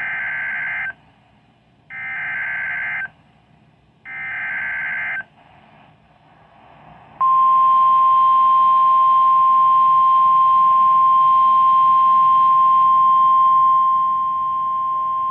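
Emergency alert data header: three roughly one-second bursts of screechy warbling data tones with short gaps between them. About seven seconds in, a steady single-pitch alert tone (the weather radio warning alarm) starts and holds, dipping a little in level near the end. Together they announce a National Weather Service severe thunderstorm warning.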